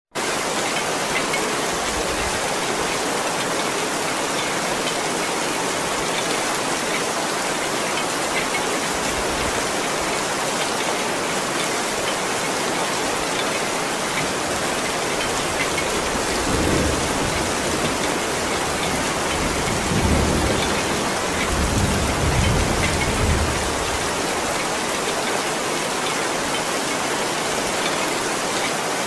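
Heavy rain falling steadily on stone paving and forest foliage, a dense even hiss of drops. Low thunder rumbles rise and fade twice, a little past halfway and again about two-thirds in.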